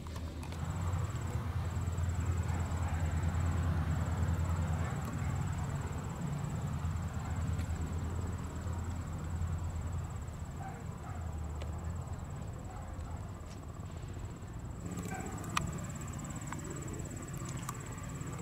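Steady low hum with a faint, thin, high-pitched whine above it.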